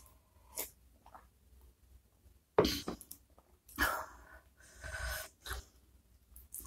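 A woman's short, sharp, loud breath bursts through the mouth and nose: two about a second apart near the middle, then a weaker one. They are her reaction to the burning heat of extra-spicy food.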